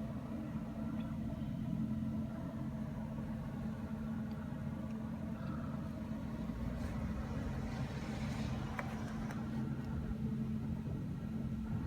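Suzuki Spacia's 660 cc three-cylinder engine running steadily, a low hum with one steady droning tone.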